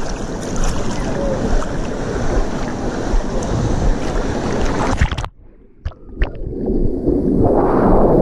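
Churning water and splashing at a waterproof action camera's microphone as it rides the outdoor wildwater rapids, with wind buffeting. About five seconds in the sound cuts out abruptly to a muffled hush with a few knocks, then rushing water swells up as the current carries into the rapids channel.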